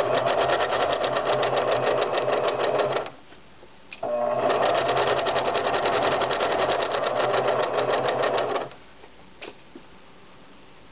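Electric sewing machine stitching a seam through fabric in two runs, about three seconds and four and a half seconds long, with a short pause between them. It then stops.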